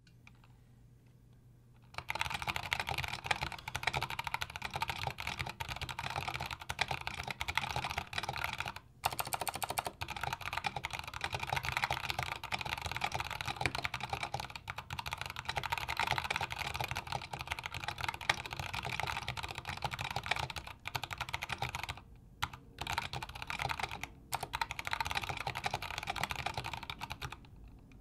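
Fast typing, about 116 words a minute, on a custom 60% mechanical keyboard with Kailh Box Brown tactile switches, thick 1.5 mm PBT keycaps and a wooden case. The keystrokes start about two seconds in, break off briefly a few times, and stop shortly before the end.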